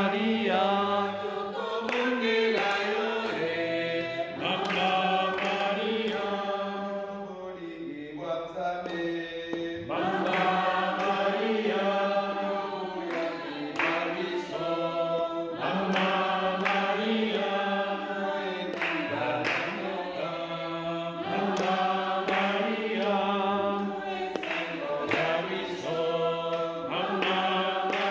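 Choir of voices singing a slow hymn together, phrase after phrase with short breaths between.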